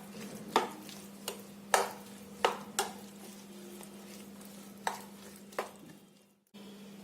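Stirring a thick mixture of soaked oats, chopped vegetables and spices in a bowl, the utensil knocking against the bowl about seven times at uneven intervals.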